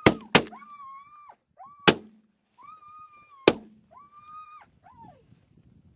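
Four shotgun blasts, two in quick succession at the start, then one about two seconds in and another a second and a half later, with geese honking repeatedly between the shots.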